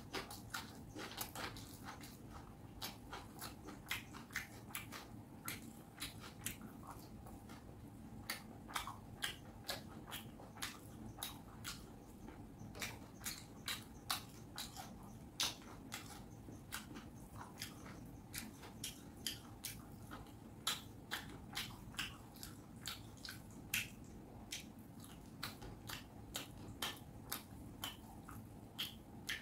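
Close-miked chewing and mouth sounds of someone eating fish curry and rice: an irregular run of sharp clicks and smacks, about one or two a second.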